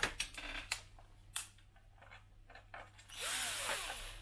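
Cordless drill-driver run in one short burst about three seconds in, its motor speeding up and slowing down again, as a screw is started into the plastic of a scale RC truck. Before it, a few sharp clicks and knocks of tools being handled on the table.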